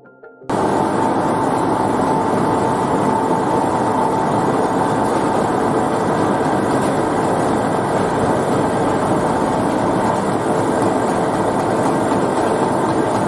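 Rice husk briquette plant machinery running steadily, with motors and husk conveyors making a dense, even machine noise and a faint steady hum through it. It starts abruptly about half a second in.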